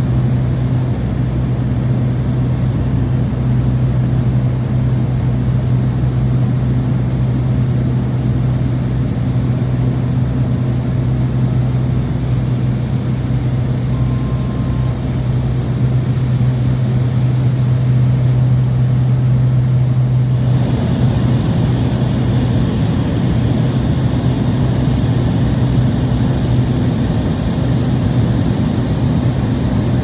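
Cabin noise of a Cessna 208B Grand Caravan EX in flight: its single turboprop engine and propeller make a loud, steady low drone over a rush of air. About twenty seconds in, the low hum drops back and a rougher, hissier rush takes over.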